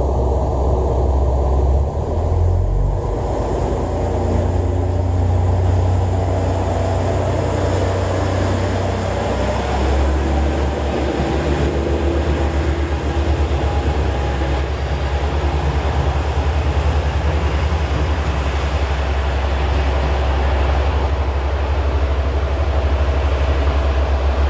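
One-car diesel railcar with its engine running at the platform, a steady low throb that pulses evenly in the second half.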